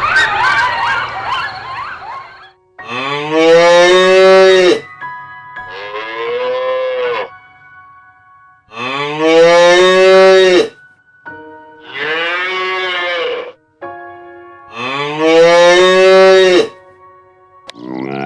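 Cattle mooing: a series of long, drawn-out moos about two seconds each, loud ones alternating with quieter ones, after a couple of seconds of a jumbled noisy sound at the start.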